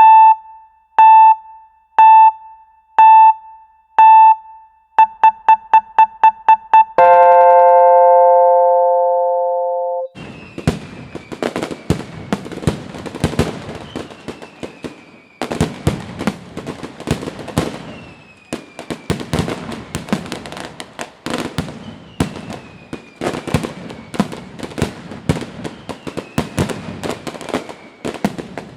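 A countdown of loud electronic beeps, about once a second and then quicker, ends in a long held chord. Then fireworks go off in quick succession, bursting and crackling with thin falling whistles.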